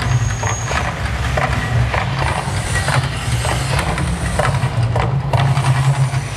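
Volcano show soundtrack: a deep, steady rumble with drum beats about twice a second over it.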